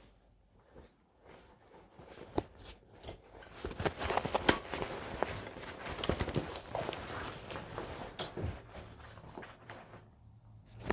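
Rustling backpack fabric with scattered clicks and knocks as the wire frame stay is slid back into its sleeve in a backpack. It starts a couple of seconds in and is busiest in the middle.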